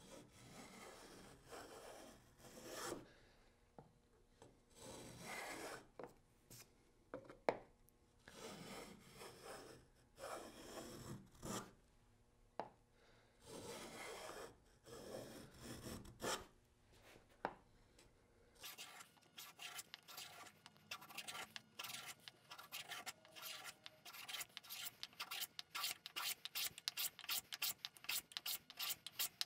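Wooden rabbet plane cutting a rabbet along the edge of a board, the blade rasping off shavings with each stroke. The strokes are slow and uneven at first, then about two-thirds in they turn to quick, short passes, several a second.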